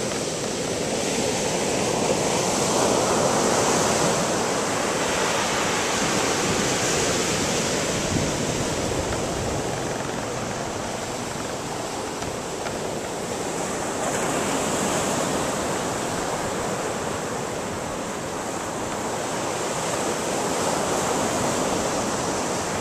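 Ocean surf breaking and washing up a sandy beach, a continuous rush that swells and eases with the sets of waves.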